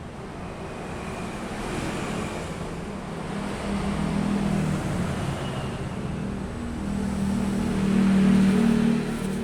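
A motor vehicle's engine running nearby, its low hum swelling to its loudest about eight seconds in, then easing off.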